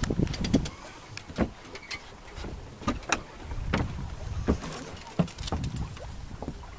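Irregular knocks and light metallic clinks from a small sailboat's fittings and rigging, over low water and wind noise.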